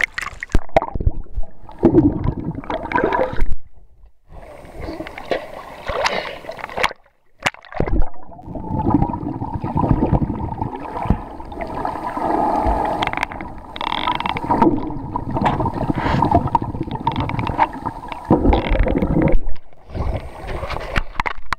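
Seawater sloshing and splashing over a handheld camera at the surface as it dips under and back up, with muffled, rushing underwater noise.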